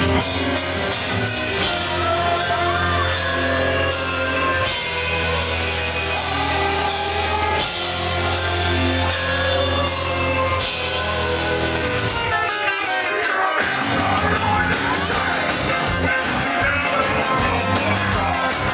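Live rock band playing loud in a club: drums, bass, electric guitars and a singer. The low bass drops out for about a second a little past the middle, then the full band comes back in.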